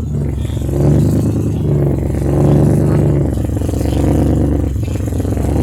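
Mitsubishi Pajero rally car's engine running at fairly steady revs, swelling and easing slightly.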